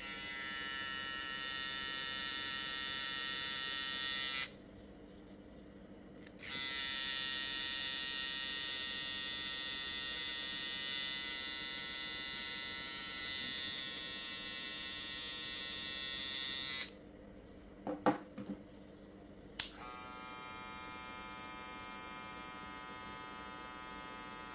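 Kemei cordless hair trimmer running with a steady electric buzz, at roughly 11,000–12,000 rpm by the RPM gauge. It is switched off about four seconds in and on again two seconds later, then off again at around seventeen seconds. A few handling clicks follow, and it comes back on running quieter, at about 7,500 rpm.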